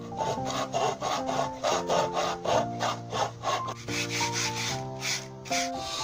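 Quick rasping strokes on wood, about four a second, stopping shortly before the end, over background music.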